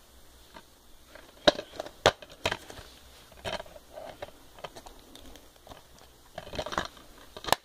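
Plastic DVD cases being handled and opened: a series of sharp clicks and clatters, with a denser cluster near the end.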